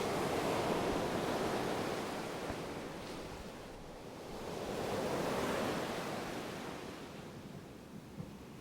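Ocean surf: waves washing in and drawing back, swelling twice about five seconds apart.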